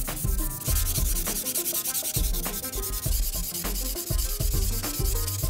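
Sandpaper rubbed by hand over the bare metal barrel and receiver of a Daisy Model 99 BB gun: a rasping hiss of quick back-and-forth strokes. Background music with a steady beat plays under it.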